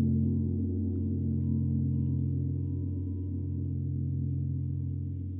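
Quartz singing bowls and gongs ringing on together in a low, sustained drone of several tones, slowly pulsing and fading.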